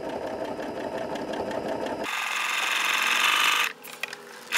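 Janome Continental M7 computerized sewing machine stitching ruler work, its needle running in a quick even rhythm. About two seconds in the sound changes abruptly to a steadier, higher whir, which drops away briefly near the end.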